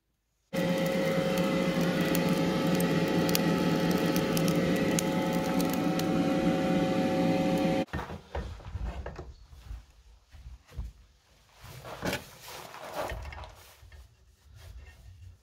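A forge running with a steady whir and several held tones for about seven seconds, cut off suddenly. Then quieter, irregular knocks and scrapes as a red-hot iron bar clamped in a bench vise is worked with a wrench.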